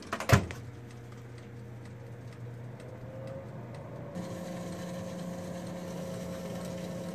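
Cuisinart air fryer toaster oven running on air fry, its convection fan giving a steady hum. A single knock comes just after the start, and about four seconds in the hum shifts to a higher pitch.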